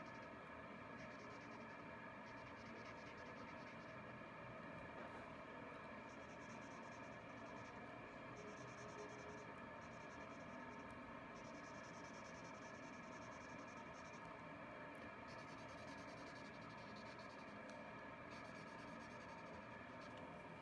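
Faint scratching of a felt-tip marker coloring in on paper, in stretches of rapid strokes with short pauses between, over a steady background hum.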